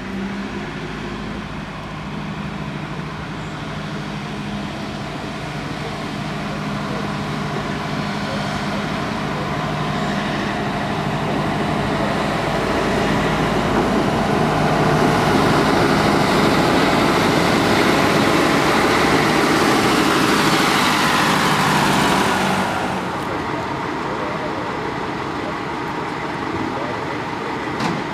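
Small diesel shunting locomotive's engine running with a steady hum, swelling louder and rougher as it works through the middle, then dropping back abruptly for the last few seconds.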